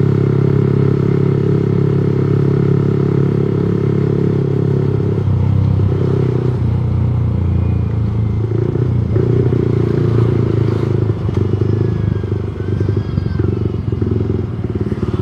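Motorcycle engine running on the move and misfiring (brebet): steady for the first few seconds, then uneven and stuttering. The misfire is one the rider says is getting worse by the day.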